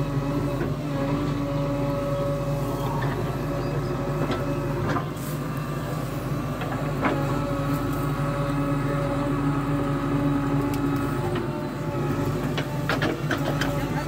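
JCB 3DX backhoe loader's diesel engine running steadily under digging load, with a steady hydraulic whine that shifts in pitch about eleven seconds in as the backhoe arm lifts the bucket. A few sharp knocks come through, most of them near the end.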